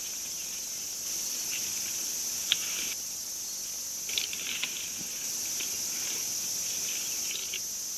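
Steady, high-pitched chorus of insects, likely crickets, with scattered small clicks and rustles; one sharper click about two and a half seconds in and a short cluster of crackles a little past the middle.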